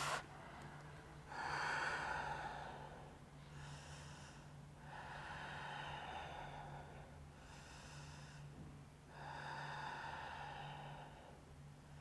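A woman's slow, audible breathing while she holds a deep forward-bending yoga pose: five faint breaths, longer ones alternating with shorter ones. A faint steady low hum runs underneath.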